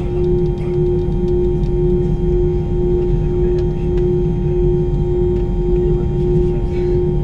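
Airbus A320 airliner cabin with the engines at ground idle while the aircraft holds still before takeoff: a steady drone carrying a constant humming tone over a low rumble.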